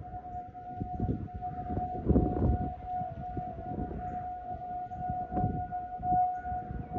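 Several outdoor warning sirens, Federal Signal 2001 and 508 types, sounding one steady, unwavering tone during a siren test. Irregular low gusts of wind buffet the microphone, strongest about two seconds in.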